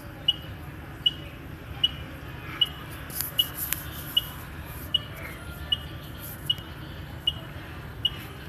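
Short high electronic beep repeating evenly, a little more than once a second, over a steady low hum.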